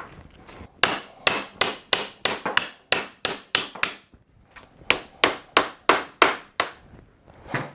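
Hammer blows on a Subaru TY752 five-speed transmission case to split its halves, about three a second in two runs with a short pause about four seconds in. The first run carries a high metallic ring.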